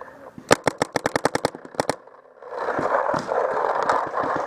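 Paintball marker firing a rapid burst of about a dozen shots, followed by about two seconds of loud, rough rushing noise.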